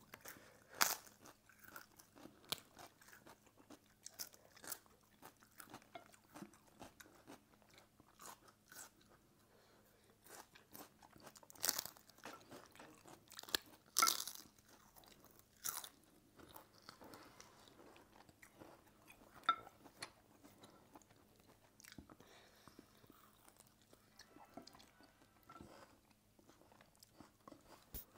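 Quiet chewing with scattered sharp crunches of crisp food being bitten, a few louder crunches standing out around the middle.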